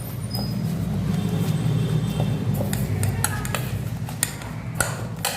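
Hands working soft dough for kochuri, over a steady low hum; from about halfway through, a run of light knocks and clinks of kitchenware.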